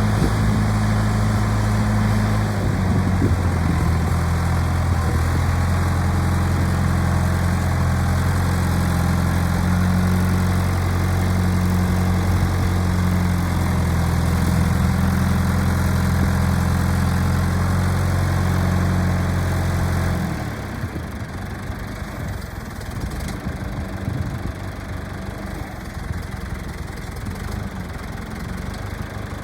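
John Deere 310-A backhoe's diesel engine running with a steady low hum, its pitch shifting slightly about two and a half seconds in. About twenty seconds in the steady hum drops away and the sound becomes quieter and rougher as the engine keeps running.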